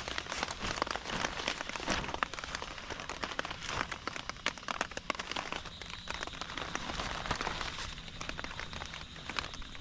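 Rain falling steadily, with many close drops striking a surface in quick, irregular succession.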